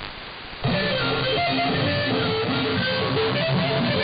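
Music from an All India Radio shortwave broadcast, heard through an AM receiver with narrow audio bandwidth. A brief quieter lull with hiss gives way, about half a second in, to instrumental music with held notes.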